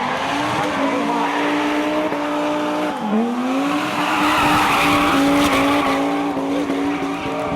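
Historic rally car's engine at high revs under hard acceleration. The pitch dips briefly about three seconds in, then holds high again, with tyre noise swelling in the middle.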